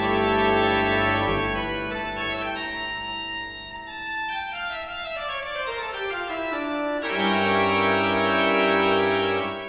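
Closing background music of long held chords. One tone glides steadily downward through the middle, and a new, fuller chord comes in about seven seconds in and is held until the music stops.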